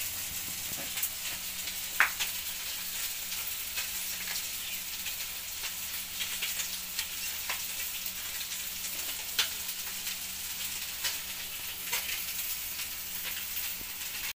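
Food frying in oil in a pan on a gas stove: a steady sizzling hiss with scattered crackles and pops, the sharpest about two seconds in.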